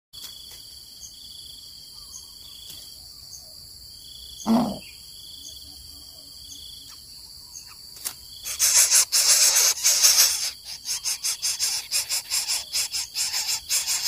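Crickets chirping steadily, with one short low call dropping in pitch about four and a half seconds in. From about eight and a half seconds, loud rapid rasping and rustling at a greater coucal's nest of dry palm leaves as the adult arrives at its chicks.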